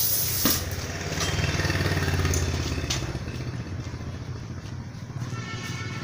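Compressed air hissing sharply from an air hose at a motorcycle's rear tire valve as the tire is inflated, cut off by a click about half a second in, followed by a low pulsing motor rumble that fades out.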